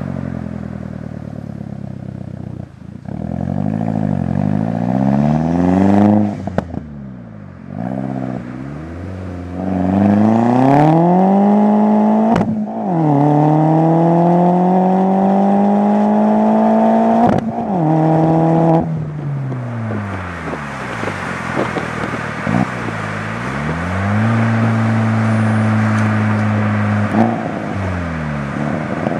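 Exhaust note of a 2002 VW GTI's 1.8-litre turbocharged four-cylinder through a 3-inch turboback exhaust with a high-flow cat, under way. Revs climb hard, drop suddenly about twelve seconds in and climb again as it shifts up, then fall back to a steady low-rpm drone before rising again near the end.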